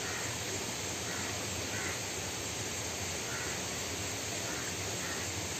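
Faint bird calls repeated every second or so over a steady outdoor hiss.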